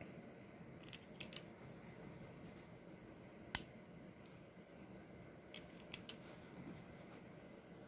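Single-action .45 Long Colt revolver handled with the hammer back, its cylinder turned by hand: about six sharp metallic clicks at uneven intervals, a close pair about a second in and a cluster of three near the end.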